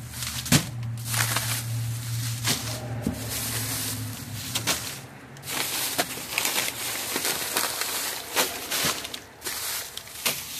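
Plastic grocery bags rustling and crinkling as they are handled and packed into a refrigerator, with sharp crackles throughout. A low hum runs underneath and stops about four seconds in.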